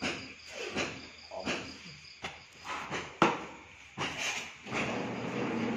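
A stick stirring a thick white mixture in a plastic bucket, each stroke scraping or sloshing about every three-quarters of a second, with one sharp knock about three seconds in. Crickets chirp faintly behind.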